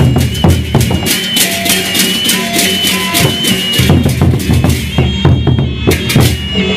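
Sasak gendang beleq ensemble playing: rapid, dense drum strokes with a thin, high melodic line above them.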